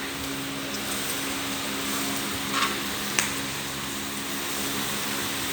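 Steady hiss and low hum of meat grilling on a tabletop barbecue under a running exhaust fan, with two faint clicks a little past two and a half and three seconds in.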